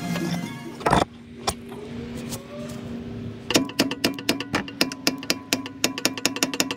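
A sharp metal knock about a second in, then from about halfway a fast, even run of metallic clicks, about four or five a second: a ratchet wrench working the ball-joint nut on a VW Passat's front suspension. Background music plays under it.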